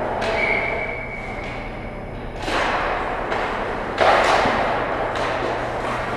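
Ice hockey play in an echoing rink: two loud knocks, about 2.5 s and 4 s in, each ringing on in the hall, over a steady hiss of skates and rink noise. A thin high tone lasts about a second near the start.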